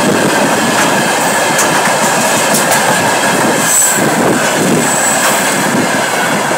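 Railway tank cars of a freight train rolling past close by: steady wheel-on-rail rumble with occasional clicks. Brief high-pitched wheel squeals come about four and five seconds in.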